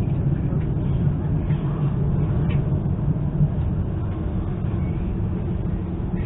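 Steady low rumble of the ЭШ2 electric train running along the line, heard from inside the car, with a faint click about two and a half seconds in.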